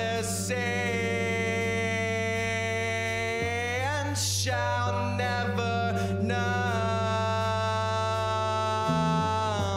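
Live rock band: a male singer holds two long sung notes, the first ending with a rising slide and the second starting about halfway through, over a steady low drone from the bass and guitar.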